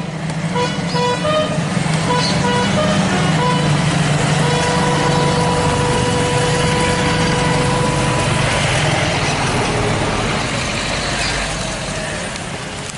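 Motorcycles and convoy vehicles drive up with their engines running. There are several short horn toots in the first three seconds, then one long steady horn note from about four to eight seconds in.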